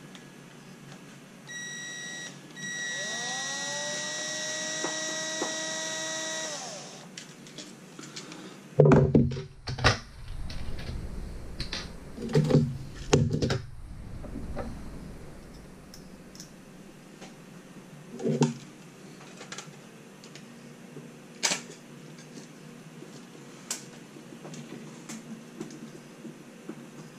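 Ridgid cordless drill/driver running, a short burst and then about four seconds of steady whine after rising up to speed, driving a screw into the aluminium bracket. Then several loud knocks and thumps from handling on the desk, followed by scattered light clicks.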